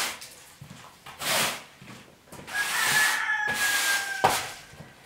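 Push broom sweeping a concrete floor: a short bristle stroke, then a longer one, each a dry scraping swish. A thin high tone, slightly falling, runs through the longer stroke for about a second and a half.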